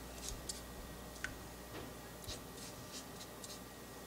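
Faint soft strokes of a silicone pastry brush dabbing beaten egg onto rounds of puff pastry dough, with a few light taps.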